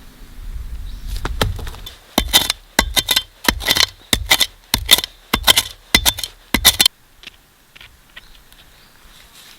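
A run of about a dozen sharp tool strikes, two to three a second, each with a slight ring, which stop abruptly about seven seconds in.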